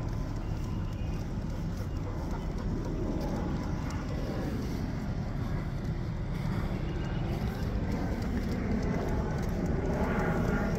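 Jet airliner flying overhead: a steady rushing noise with a slow sweep in pitch that dips and rises about halfway through.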